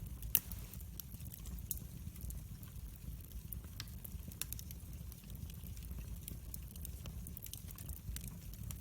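Wood fire crackling in a fireplace: a steady low rumble of flame with many scattered sharp pops and snaps, the loudest about half a second in.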